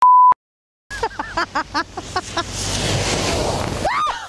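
A short, loud censor bleep cuts to silence. Then comes a run of short shrieks from a woman, then the rush of water as a car drives through a flooded road and drenches her, and a rising scream near the end.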